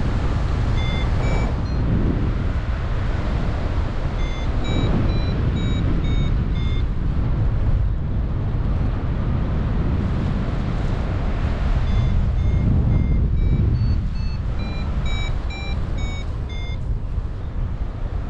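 Wind buffeting the microphone in flight under a paraglider, with a flight variometer beeping in three runs of quick short beeps whose pitch steps up and down: the vario signalling lift.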